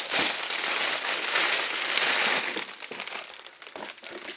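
Plastic wrapping crinkling as a keyboard is pulled out of its plastic bag, thinning to scattered rustles after about two and a half seconds.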